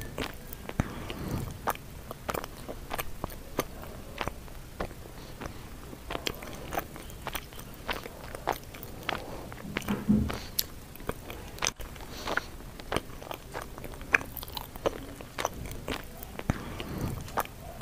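Close-up eating sounds: a person biting and chewing sweet potato leaves (talbos ng kamote), with many sharp, irregular clicks and smacks from the mouth.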